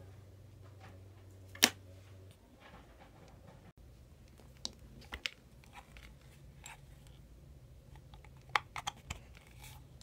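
Handling noise from unpacking: one sharp snap about a second and a half in, then scattered light clicks and knocks as a plastic power adapter and its cable are handled.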